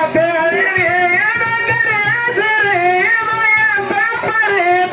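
Loud singing with music: one voice holds wavering notes that glide up and down.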